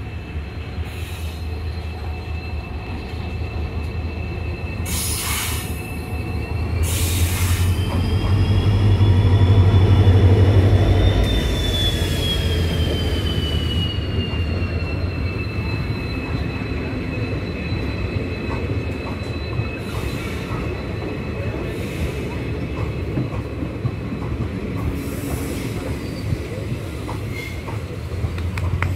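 Indian Railways diesel locomotive hauling a passenger express past at a station: the engine drone grows to its loudest about ten seconds in, with high squealing tones from the wheels that drop in pitch as the locomotive goes by. Then the coaches keep rolling past with a steady wheel squeal.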